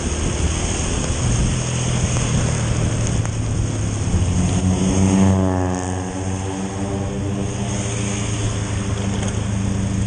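Small Honda scooter engine running at a steady cruise, with tyres hissing on the wet road. About halfway through, an oncoming vehicle passes, its sound swelling and fading.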